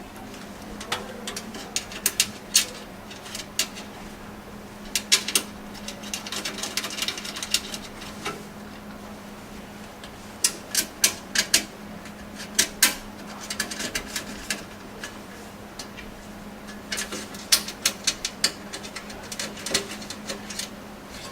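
Motherboard standoffs being screwed into a PC case: clusters of sharp metallic clicks and taps that come and go, with a faint steady hum underneath.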